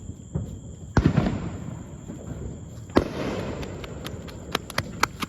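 Fireworks going off: two loud bangs about two seconds apart, each followed by a rumbling tail, then a quick run of sharp crackling pops near the end.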